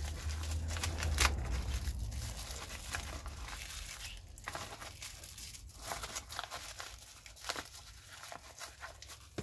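Plastic packaging bags crinkling and rustling as small stove parts are handled and unwrapped by hand, with a few sharper crackles.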